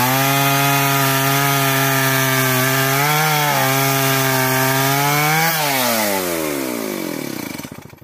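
Stihl chainsaw running at full throttle, cutting into a tree trunk. Its note wavers briefly under load about three seconds in. From about five and a half seconds the throttle comes off and the engine winds down steadily in pitch, fading away near the end.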